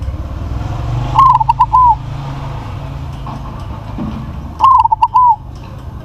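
Crossbred zebra dove (perkutut) cooing loudly twice, about three seconds apart. Each phrase opens with a rising note, breaks into a quick run of short clipped notes and ends on a longer drawn-out note. A steady low background rumble runs underneath.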